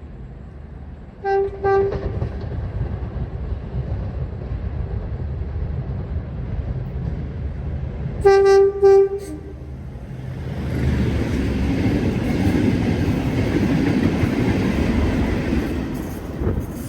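A train's horn gives two short blasts, and a few seconds later another set of short blasts, over a low engine rumble. The train then passes, its wheel and rail noise swelling loudly before fading near the end.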